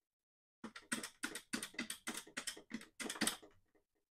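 Metal push-buttons on a touch-tone payphone keypad pressed about a dozen times in quick succession, giving bare clicks with no touch tones. The keypad has been disabled by the payphone controller after the first three digits.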